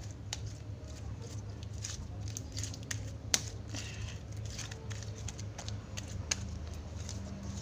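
White homemade slime being kneaded, stretched and folded by hand, with irregular sticky clicks and small pops; one sharper pop a little over three seconds in. Lotion is being worked into it.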